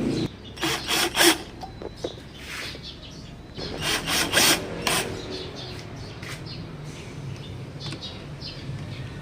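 Hand work on MDF boards: several short scraping, rasping strokes in the first half, then a quieter steady hum.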